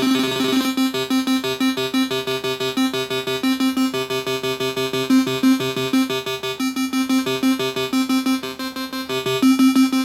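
Electric-piano-like synth notes played in a fast, even run of short repeated notes, triggered from an Akai MPK249 MIDI keyboard controller under a sound test after repair.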